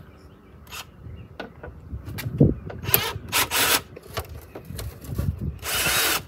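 Cordless drill run in short bursts on a stubborn screw in a car's trunk lid, with scraping and a few knocks.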